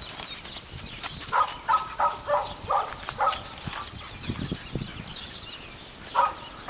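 A dog yipping: a quick run of about six short, high yips a little over a second in, and another yip near the end.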